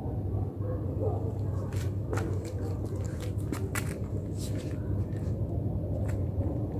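A cat's claws clicking and scraping on a stone tile floor as it paws at a beetle, a cluster of short sharp ticks from about two to five seconds in and one more near the end, over a steady low background hum.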